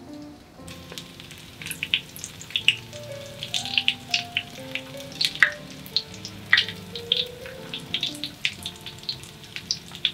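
Breaded crab sticks shallow-frying in oil in a rectangular tamagoyaki pan: a sizzle full of sharp crackles and pops that starts about a second in. Soft piano background music plays throughout.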